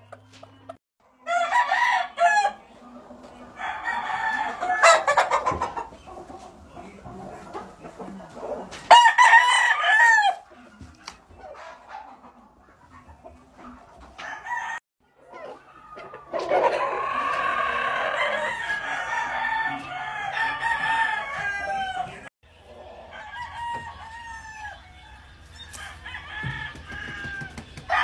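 Gamefowl roosters crowing again and again, one crow after another, with a longer run of overlapping crows about two-thirds of the way through.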